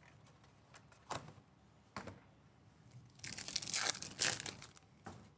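Foil wrapper of a 2024 Topps Series 2 baseball card pack being torn open and crumpled. There are a couple of sharp crackles, then a burst of crinkling about three seconds in that lasts over a second.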